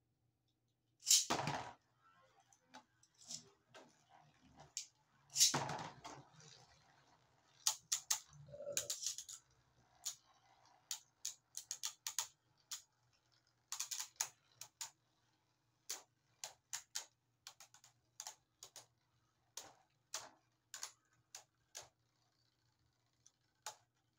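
Two Beyblade Burst spinning tops battling in a plastic stadium. There is a loud crash about a second in and another about five seconds in, then a long run of sharp, irregular clacks as the tops strike each other and the stadium walls, dying out a couple of seconds before the end.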